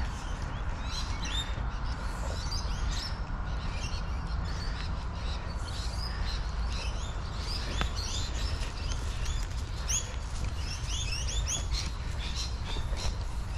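Birds chirping in the trees: many short, quick calls overlapping one another, over a steady low rumble.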